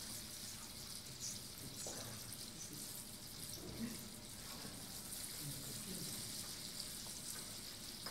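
Steady faint trickle of water flowing in a stone baptismal font.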